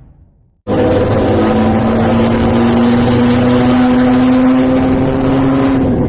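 Bus engine running hard through a modified "ngorok" exhaust, a loud, steady droning note whose pitch climbs slowly. It starts abruptly about half a second in.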